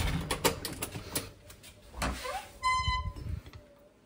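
A door being shut and locked: a quick run of latch and lock clicks, then a short squeak and a brief high tone about half a second long near the end.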